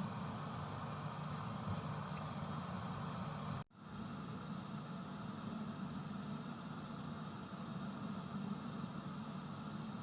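Gas heater hissing steadily, an even rushing noise with a stronger low rumble beneath it. The sound cuts out completely for a split second about four seconds in, then carries on as before.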